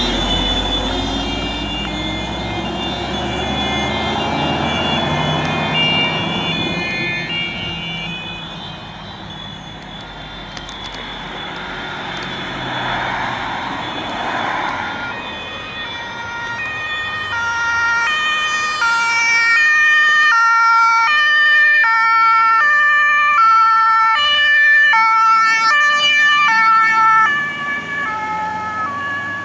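Two-tone emergency vehicle horns (German Martinshorn) on passing THW vehicles, stepping between a high and a low pitch about once a second, along with truck engine and tyre noise. An early horn fades away as a truck passes, then another comes on loud as a van approaches and passes near the end.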